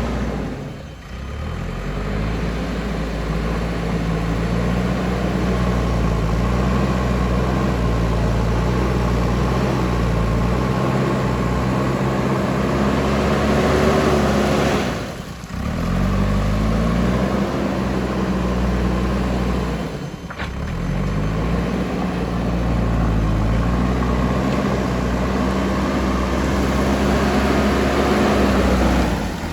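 Diesel engine of a JCB backhoe loader running steadily under load, its pitch rising as it revs up a couple of times. The sound drops out briefly three times.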